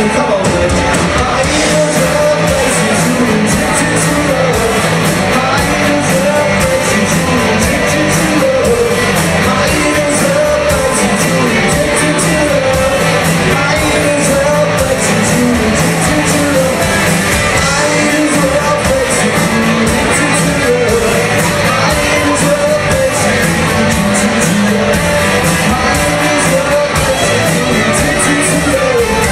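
Live rock covers band playing a song with a singer, guitar and drums, with a steady beat, recorded in a large hall.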